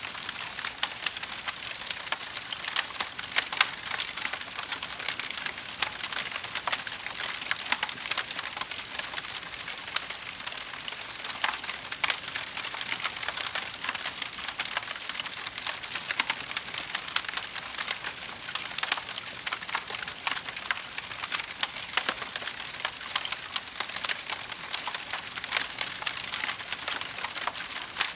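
Wood fire crackling: a dense, steady run of small sharp pops and snaps over a soft hiss.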